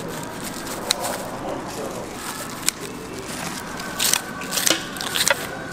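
Sharp clicks and snips of metal kitchen utensils: single clicks about one and three seconds in, then a quick run of them near the end, over a steady hiss.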